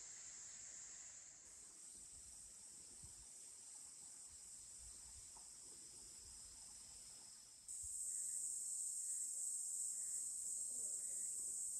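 Crickets chirring in a steady, high-pitched chorus, growing abruptly louder about two-thirds of the way through.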